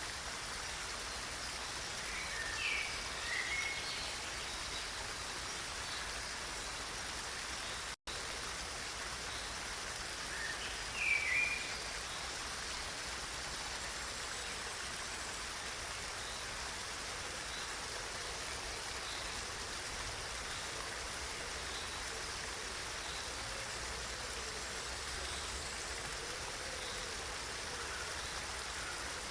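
Steady rushing of a flowing stream, with a bird giving short chirps twice, about three seconds in and again around eleven seconds. The sound cuts out for an instant about eight seconds in.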